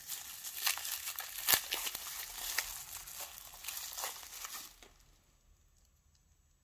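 Plastic wrapping crinkling as it is pulled off a padlock by hand, stopping about five seconds in.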